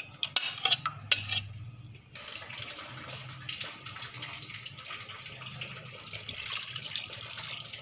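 A few light knocks of a plate against a nonstick pan as red chilli powder is shaken into tamarind paste, then a steady hiss like running water for the rest.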